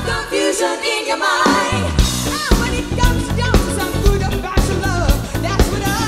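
A live soul-pop band with female vocals. A voice sings with wide vibrato, then bass and a drum kit come in about a second and a half in, setting a steady beat of about two hits a second.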